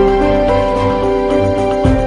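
Background music with sustained melodic notes over a steady low pulse.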